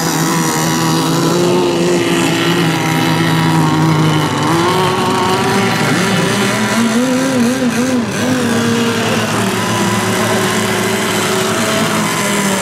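Several radio-controlled race boats' small engines running flat out, a high buzz whose pitch drifts and warbles, most around seven to eight seconds in.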